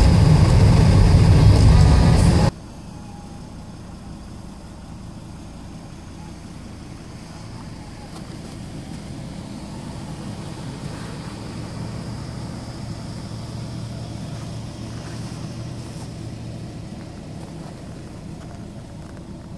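Car driving on a snow-covered road, heard from inside the cabin: loud road and tyre noise that cuts off abruptly a couple of seconds in, followed by a quieter, steady low engine and road hum as the car moves slowly.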